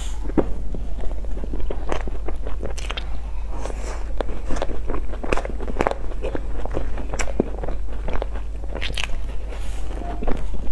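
Close-miked biting and chewing of crumb-topped cream puffs: many small, irregular crunches and crackles as the crisp topping breaks, over a steady low hum.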